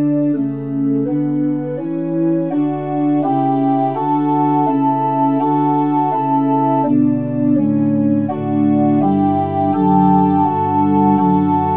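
Sampled pipe organ on Montre 8' and Gedackt 4' stops, playing a slow piece in several voices. It moves in held chords that change about every half second, and the bass steps lower in the second half.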